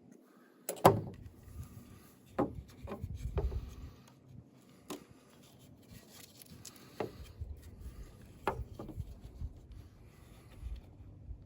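Dry wooden branch being handled, knocking and rubbing as a cord is worked through a slot sawn in its end. A sharp knock comes about a second in, followed by a few scattered knocks over low rubbing.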